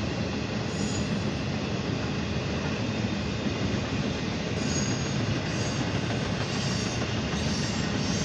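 Norfolk Southern intermodal train's cars rolling past: a steady rumble of steel wheels on rail, with short high wheel squeals about a second in and again from about five seconds on.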